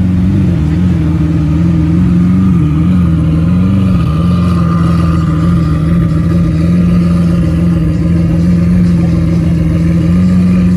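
Lamborghini Aventador V12 running at low revs as the car creeps along, a steady deep drone whose pitch wavers slightly in the first few seconds.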